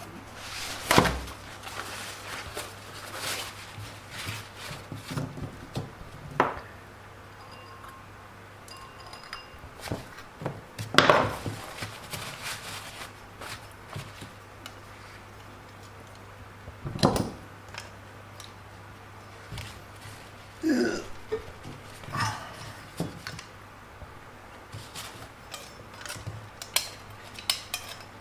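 Plastic RC suspension arms and a hot-water container being handled on a tabletop: scattered clicks, taps and light clatter, with a few louder knocks, over a steady low hum.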